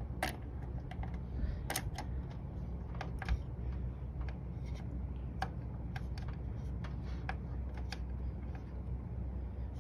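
Small screwdriver driving the tiny retaining screw that holds an M.2 SSD to a PC motherboard: irregular faint clicks and ticks of the tool on the screw, over a steady low hum.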